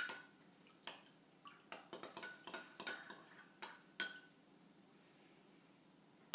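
A spoon stirring milk and chocolate syrup in a ceramic mug, clinking against the inside of the mug in a quick run of light strikes, a few of them ringing briefly. The clinking stops about four seconds in.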